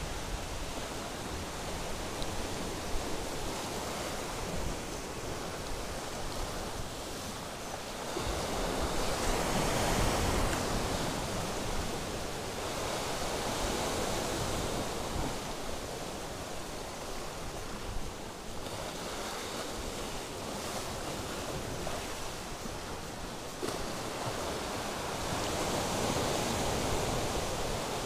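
Sea surf breaking and washing over shoreline rocks, a steady rushing wash that swells louder with each set of waves, most strongly about a third of the way in and again near the end.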